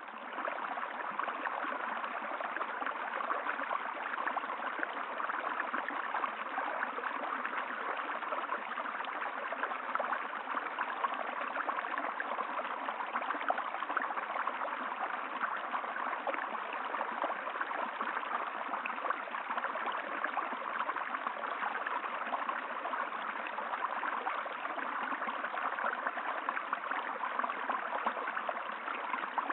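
River water flowing and burbling steadily over stones, an even rushing with fine splashing texture.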